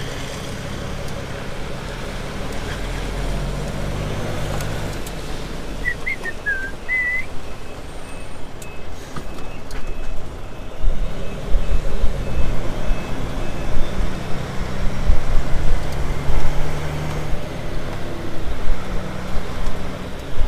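A heavy goods vehicle's diesel engine running as the lorry is shuffled over a short way, getting louder and more uneven in the second half. A reversing alarm beeps for a few seconds in the middle.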